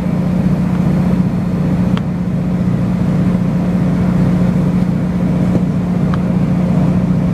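Steady drone of a diesel multiple-unit train's underfloor engine heard from inside the carriage while running, over a continuous rumble of wheels on rail, with a few faint clicks.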